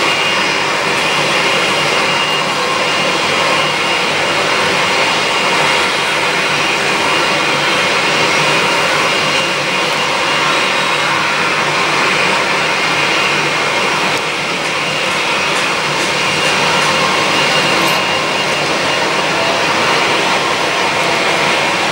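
Boeing 777 jet engines on final approach: a steady rushing noise with a high whine running through it.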